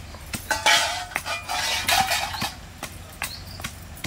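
Metal cooking pots and utensils clinking and scraping, with a louder clatter from about half a second to two and a half seconds in.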